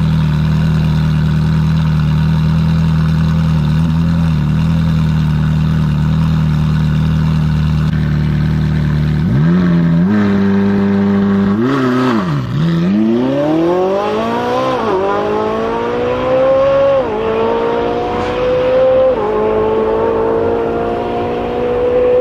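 Ferrari 458 Italia's V8 running steadily at a raised idle, then revs climbing about nine seconds in. From about halfway on the car pulls away hard, the engine note rising and dropping back at each of about four quick upshifts.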